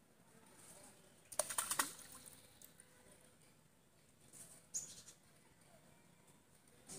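A brief splash at the pond's surface about a second and a half in, a quick cluster of sharp slaps at the line where a bamboo hook-fishing pole's line enters the water. A short high chirp follows a few seconds later over faint outdoor quiet.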